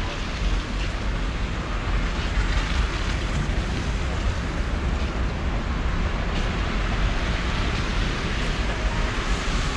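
Storm wind buffeting the microphone: a steady, gusting rumble with a hiss over it.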